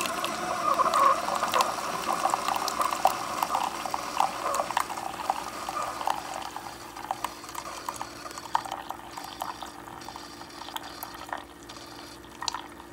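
Single-serve coffee maker dispensing a thin stream of coffee into a stainless-steel-lined tumbler, splashing and trickling over a low steady hum. The splashing is loudest at first and grows quieter as the cup fills.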